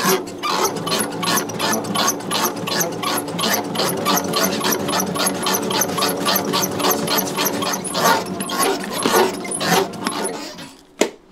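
A bakery machine running with a rapid, even clatter of about four knocks a second over a steady motor hum. It stops a little before the end, followed by a single sharp click.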